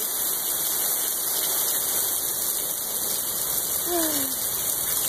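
Heavy rain pouring steadily onto lawn, street and pavement, a dense even hiss.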